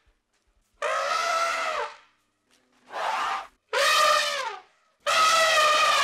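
Elephant trumpeting: four separate calls, each up to about a second long, the first starting about a second in and the last running on at the end.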